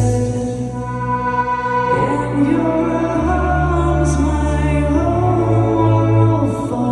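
Electric keyboard playing sustained chords under a voice singing long held notes; the low bass notes change about three seconds in and again about five seconds in.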